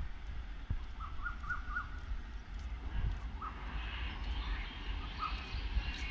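Birds calling with short chirps: four quick notes about a second in, then single chirps and higher twittering in the second half, over a low steady rumble.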